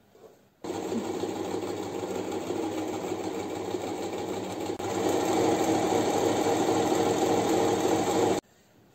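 Janome 393 mechanical sewing machine sewing a zigzag stitch. It starts about half a second in and runs steadily, runs faster and louder from about halfway, then stops suddenly near the end.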